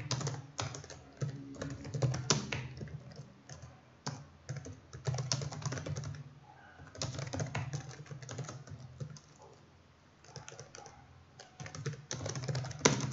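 Typing on a computer keyboard: runs of quick keystroke clicks broken by short pauses, sparser for a couple of seconds after the middle.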